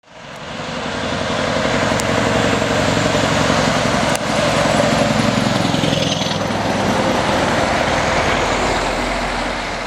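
Heavy trucks with trailers driving past at road speed: a steady diesel engine drone and tyre and road noise. The engine note drops in pitch about halfway through as the lead truck goes by.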